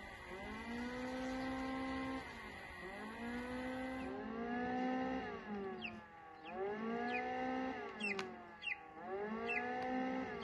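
A chick peeping inside a pipped egg: short, high, falling peeps, about eight of them, from about six seconds in. Behind them a low droning tone swells and fades every couple of seconds.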